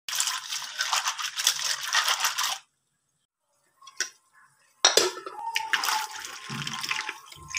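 Golden apple snails being washed by hand in water in steel basins: shells rattling and scraping against the metal with water sloshing. It breaks off about two and a half seconds in and starts again near the five-second mark.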